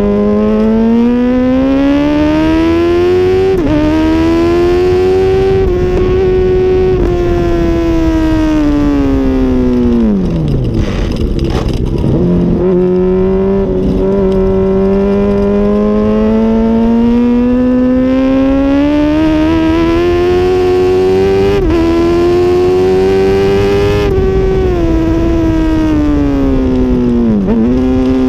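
2006 Honda CBR1000RR's inline-four engine at racing speed, climbing through the revs with quick upshifts, then falling as it shifts down into a corner about ten seconds in and again near the end. A steady rush of wind noise runs beneath it.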